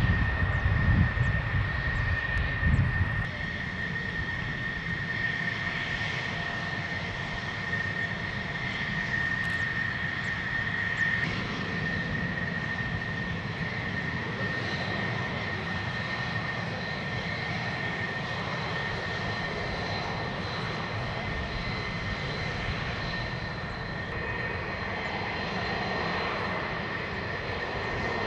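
Fighter jet engine running at taxi power: a steady high whine over a rushing noise. A deeper rumble in the first three seconds drops away.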